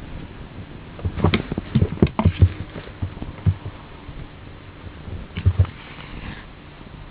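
Cats scuffling in a fight: a cluster of quick thumps and bumps about a second in, another single thump a little later, and a few more near the end.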